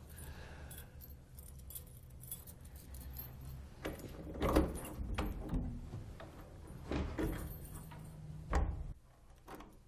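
A bunch of keys jangling and clicking as a key unlocks a wooden front door, with several sharp knocks and clicks of the lock and the door between about four and nine seconds in.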